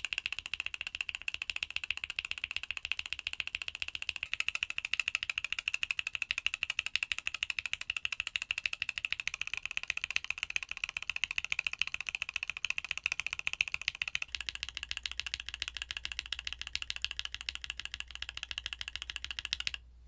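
Steady fast typing on a Mode Sonnet mechanical keyboard fitted with Gateron Golden Cap V2 switches (nylon housing, POM stem): a dense stream of key clacks, first with the switches stock, then lubed. The character of the clacking shifts slightly about four and fourteen seconds in, and the typing stops just before the end.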